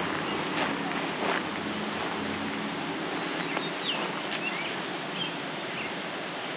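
Roadside outdoor ambience: a steady rushing hiss with a low vehicle engine hum that fades out about two seconds in, a few faint bird chirps near the middle, and a couple of soft footsteps on dry ground early on.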